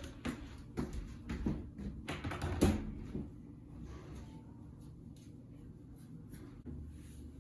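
A handful of light knocks and bumps from furniture and household items being handled and moved in a room. They fall in the first three seconds, the loudest a little over two and a half seconds in, then it goes quieter.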